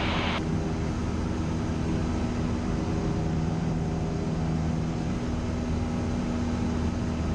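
Cessna 172's piston engine and propeller droning steadily in cruise flight, heard inside the cabin, with an even low hum and a rush of noise.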